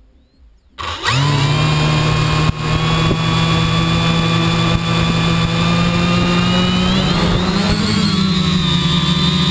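Quadcopter's electric motors and propellers spinning up suddenly about a second in, then running steadily. From about seven seconds in the pitch rises and wavers as the throttle goes up and the craft lifts off.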